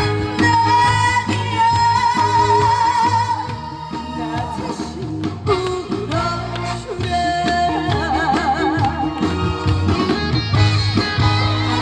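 A female vocalist sings a trot song live, her long held notes wavering with heavy vibrato, over a full band accompaniment with a steady bass line.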